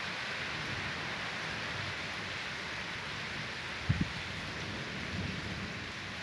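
Heavy rain falling steadily, a dense even hiss, with a brief low thump about four seconds in.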